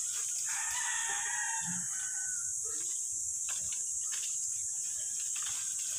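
One drawn-out animal call, about a second and a half long, from about half a second in, over a steady high hiss. Later come a few faint short cracks and rustles as branches are climbed through.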